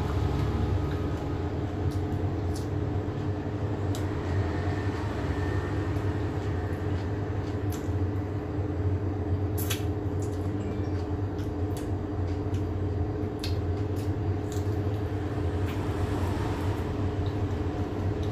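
A steady low mechanical hum throughout, with a few short, sharp clicks scattered over it.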